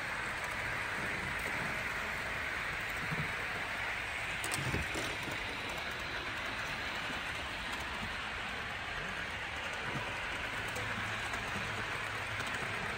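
Steady rolling rattle of an OO gauge model steam locomotive and its coaches running along the track, with one brief knock about four and a half seconds in.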